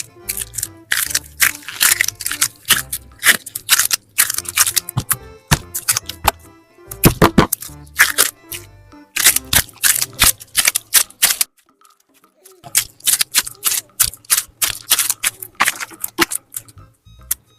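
Slime being squeezed and worked in the hands, giving clusters of loud sticky crackles and clicks, over soft background music. The crackling pauses for about a second partway through.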